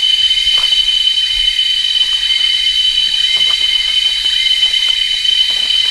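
Tropical rainforest insect chorus, cicadas droning in a steady high-pitched whine, with a few faint short calls over it.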